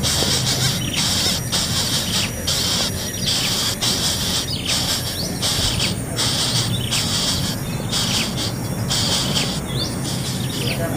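A high, dense buzzing trill that stops and starts every half second or so, with a few short bird chirps over it.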